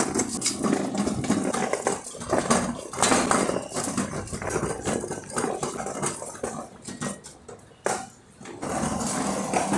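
Empty platform hand trolley rolling over a hard concrete floor, its casters and plastic deck rattling and clattering, with a brief lull and a sharp knock about eight seconds in.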